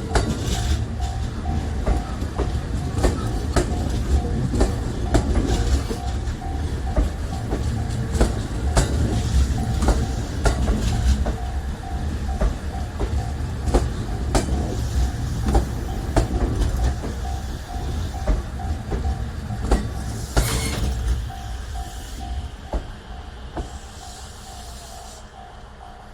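A train passing a level crossing: steady clatter of wheels over rail joints, fading away a few seconds before the end. The crossing's warning bell rings throughout in an even on-off pattern.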